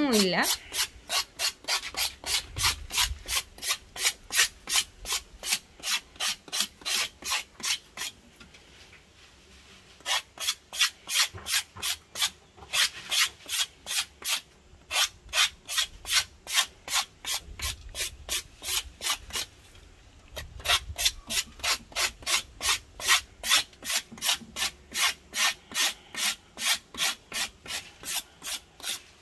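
Knife blade scraping the outer bark off a freshly cut Ceylon cinnamon branch in quick, even rasping strokes, about three a second, with a pause of about two seconds a third of the way in and a couple of short breaks later. This is the first stage of cinnamon peeling: the scentless outer skin is scraped away to bare the inner bark.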